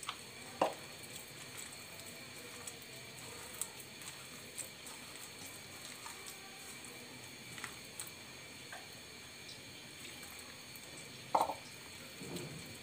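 A hand mixing thick gram-flour (besan) batter in a bowl: faint wet squishing with a few short soft slaps, the loudest about half a second in and about a second and a half before the end.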